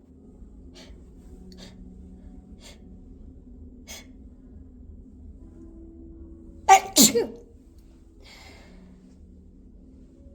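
A few faint, short hitching breaths, then about seven seconds in a loud induced sneeze in two quick bursts, followed by a softer breath out.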